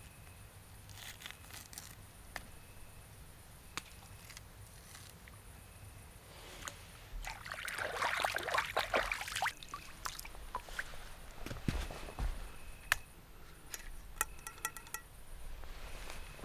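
Liquid pouring and sloshing, heaviest for a couple of seconds just before the middle, with scattered small clicks and knocks throughout.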